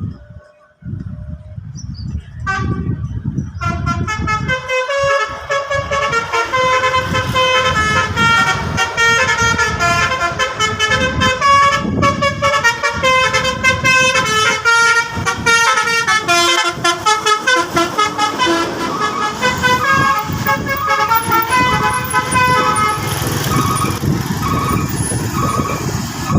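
Bus telolet horn: a multi-tone air horn playing a long, rapid melody of stepped notes over the low rumble of the bus engine, beginning about two seconds in.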